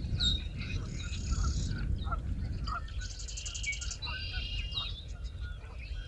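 Dawn chorus of several marsh birds singing over one another: rapid trills and buzzy, repeated songs that start and stop every second or two, picked up by a homemade parabolic dish microphone, with a steady low rumble underneath.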